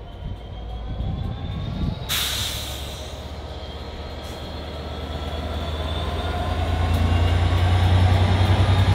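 Locomotive approaching running light, its low engine drone growing steadily louder, with a faint high whine. A short burst of hiss comes about two seconds in.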